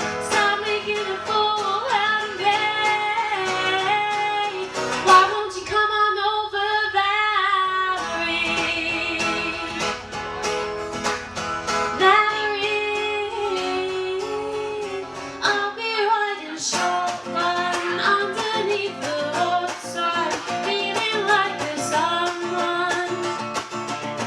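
Live pop cover music: a woman singing over guitar. The music changes abruptly twice, where clips of different songs are cut together.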